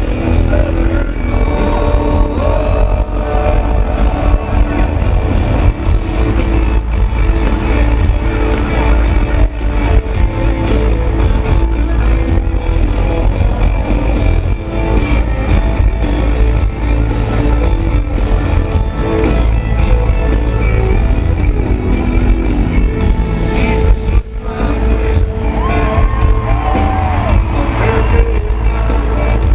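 Live country-rock band playing loudly through a stadium PA, heard from within the crowd, with electric guitar in the mix. The music drops briefly about 24 seconds in, then carries on.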